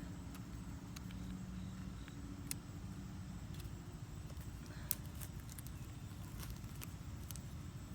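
Faint low outdoor background rumble with a light hum for the first few seconds and a few soft clicks, the sharpest about five seconds in.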